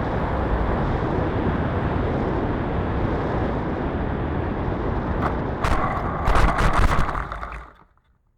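Steady wind rush from an FPV fixed-wing RC plane's onboard camera microphone. Near the end a run of knocks and rough scraping bursts sounds, and then the audio cuts off suddenly.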